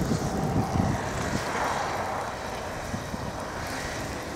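A vehicle going by on a snow-covered road, its noise swelling and fading around the middle, with wind buffeting the microphone throughout.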